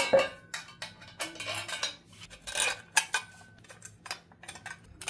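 Irregular small metallic clinks and rattles as a motorized-bicycle gas tank's metal mounting brackets and studs are handled and fitted onto the bike frame's top tube.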